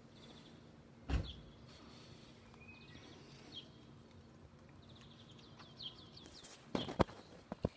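Small birds chirping and trilling in short high series over a faint steady hum, with a low thump about a second in and a few sharp knocks near the end, typical of a phone being handled.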